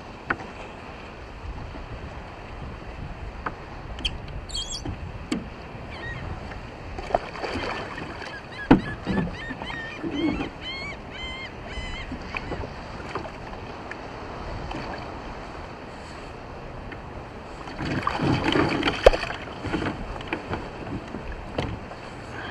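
Water splashing and hard knocks against a kayak hull as a large red drum is wrestled at the kayak's side and hauled aboard. A louder burst of splashing comes near the end, over a steady wash of wind and water.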